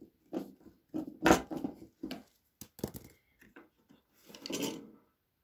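Small screw being driven into a plastic bottle cap with a hand screwdriver: short creaking squeaks with each turn, the loudest about a second in, then a few sharp clicks and a brief burst of handling noise near the end.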